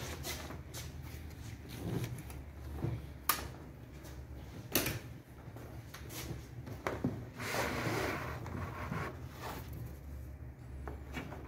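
Bungee cord being threaded and pulled through the deck fittings of a plastic kayak hull: scattered clicks and knocks of handling, with a stretch of rubbing about eight seconds in.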